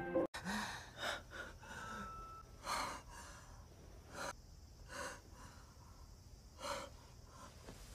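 Heavy breathing and gasps of a couple during lovemaking, in irregular breaths about a second apart. Soft background music cuts off abruptly just after the start.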